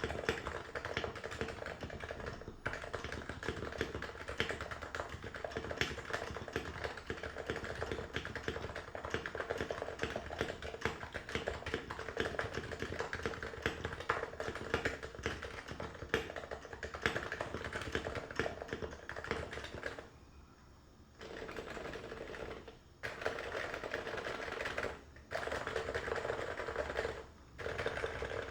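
Norbauer Norbaforce MK III keyboard with stock Realforce R2 PFU Topre internals (45 g domes, stock keycaps), typed on fast and continuously in a dense run of keystrokes. About two-thirds of the way through the typing stops for a second, then resumes in short runs with brief gaps between them.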